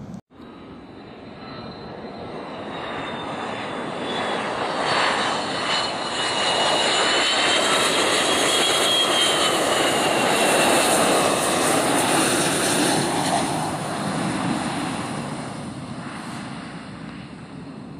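Jet airliner passing by. Its engine noise swells to a peak and fades away, with a high engine whine that slides down in pitch as it goes past.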